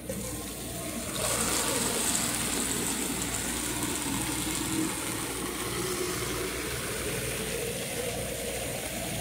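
Water pouring from a bucket's push-button tap through a tube into a small plastic bottle: a steady splashing hiss that grows louder about a second in, with a faint tone rising in pitch as the bottle fills.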